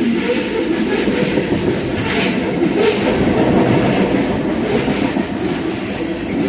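Railroad cars of a CN train rolling past, a loud steady rumble of wheels on rail with a few sharp clacks over the rail joints.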